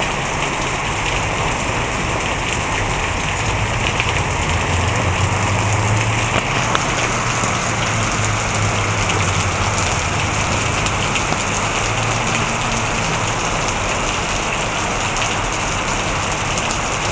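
Heavy rain pouring down, a steady dense hiss of a downpour hitting the ground and nearby surfaces. A low rumble swells a few seconds in and fades again before the end.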